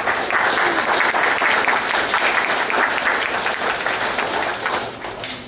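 Audience applauding: a room full of people clapping, swelling quickly at the start, holding steady and fading out near the end.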